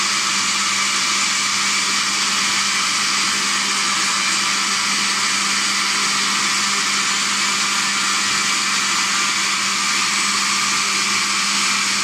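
Oster All-Metal Drive blender running at one steady speed, blending a full jar of milk drink: an even motor whirr with a constant low hum that holds without a break.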